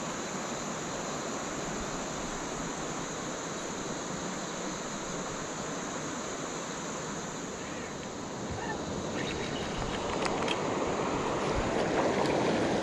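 Steady rush of flowing river water, swelling louder over the last few seconds, with a few faint clicks about two-thirds of the way through.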